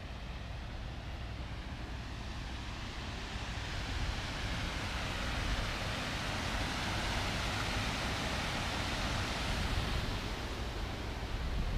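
Water rushing through the dam's outlet gate and churning below it, a steady rushing that grows louder partway through and eases off near the end.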